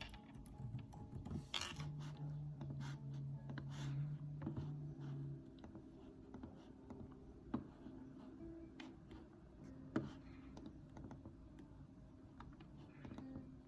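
Sparse, faint keystrokes and clicks at a computer keyboard and mouse, with two sharper clicks about seven and ten seconds in.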